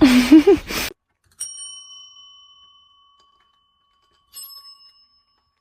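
Two dings of a small bell, about three seconds apart, each ringing out and fading, the first longer than the second. Before them, in the first second, comes a short voiced sound with a rising and falling pitch.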